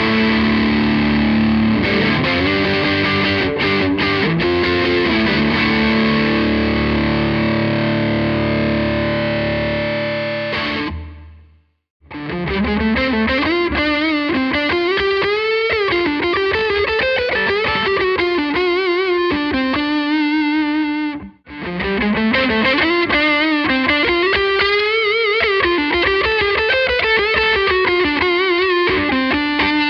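Electric guitar through the overdrive channel of a Blackstar HT20R MKII valve amp, heavily distorted. Held chords and riffs for about 11 s, a sudden stop, then a single-note lead line with string bends and vibrato. The lead breaks off briefly about two-thirds of the way through, then resumes and ends on a held, vibratoed note.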